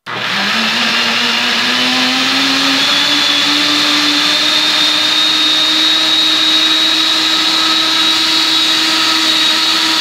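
Mondial Electronic Inox 700 W blender starting up and blending fruit with milk into a smoothie. Its motor whine rises in pitch over the first three or four seconds as the knob is turned up through the speeds toward maximum, then runs steady at top speed.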